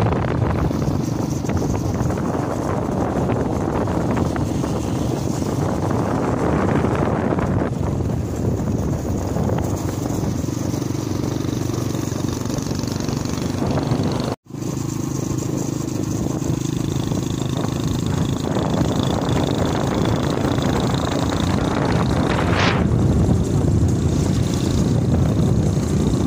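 Steady running of a moving vehicle's engine with road and wind rumble, heard from on board. The sound drops out for an instant about halfway through.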